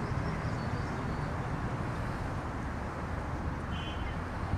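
Steady outdoor city ambience: a low, even rumble of distant traffic, with a few faint bird chirps, one of them about four seconds in.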